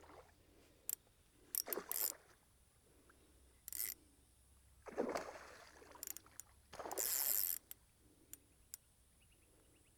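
A hooked fish splashing at the water's surface in short, scattered bursts while being played on rod and line, with a few light clicks and knocks of tackle handling in between.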